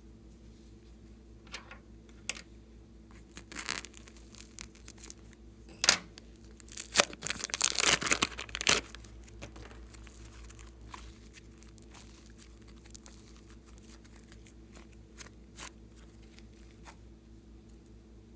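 Glossy slime being stretched, pulled apart and pressed by hand, making sticky crackles and pops. The busiest, loudest stretch of crackling comes about halfway through, with scattered pops before and after.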